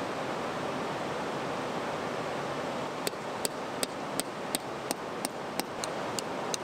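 River water rushing steadily. About halfway in, a quick, evenly spaced ticking starts over it, about three ticks a second.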